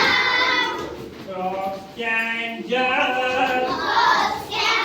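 Children singing a simple, repetitive action rhyme, with some words drawn out on long held notes.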